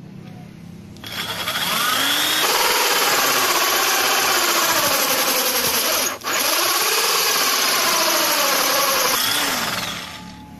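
Electric drill with a hole saw cutting a circular hole in MDF board. The motor winds up about a second in, runs loud and steady while the saw cuts, drops out for a moment just past halfway and picks up again, then winds down near the end.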